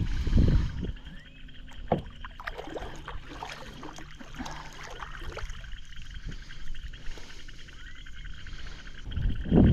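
Knocks, splashes and handling noise around a fishing kayak. There is a low rumbling burst just after the start and another near the end, with scattered short clicks and knocks between them, over a steady high-pitched background chorus.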